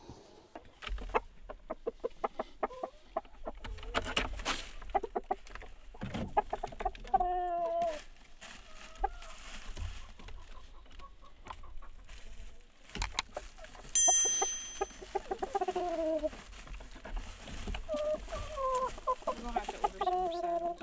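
Chickens clucking on pine-shaving coop bedding: quick runs of short clucks, then several longer squawking calls that fall in pitch. A few sharp knocks and a brief high-pitched tone about two-thirds of the way through.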